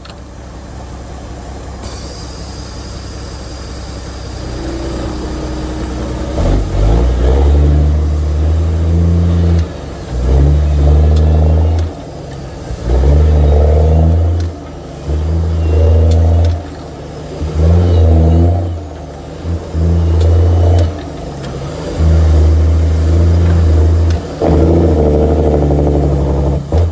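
Caterpillar C15 diesel engine of a semi truck heard from inside the cab, building up over the first few seconds, then pulling hard through the gears of an 18-speed manual gearbox: about eight loud stretches under load, each broken by a short drop in sound as the driver shifts.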